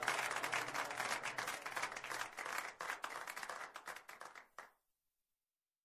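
Audience applause, a dense patter of many hands clapping, fading over a couple of seconds and cutting off about four and a half seconds in.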